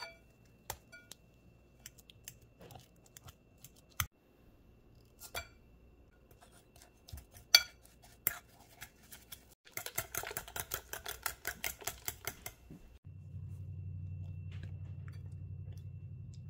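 A metal fork clinking and scraping against a glass bowl while mashing bananas, with scattered sharp taps. About ten seconds in it becomes fast, even tapping, about six strokes a second, for roughly two and a half seconds as the fork beats the mixture. A steady low hum fills the last few seconds.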